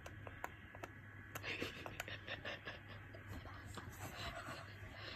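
Faint scattered clicks and taps with soft rustling and a breathy, whisper-like voice, over a low steady hum.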